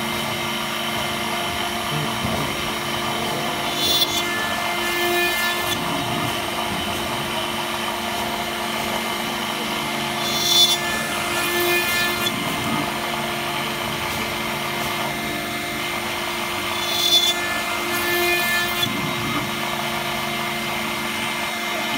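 CNC router spindle running steadily while a small cutter mills into a brass plate, with a steady whine. A louder, sharper cutting burst comes three times, about six and a half seconds apart, as the cutter works each new hole.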